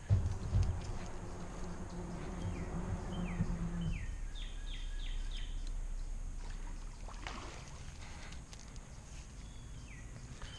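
Steady rush of water from the dam, with a couple of loud thumps right at the start and a heavier low rumble over the first few seconds. A bird calls in short falling chirps, a quick run of them around the middle and a few more near the end.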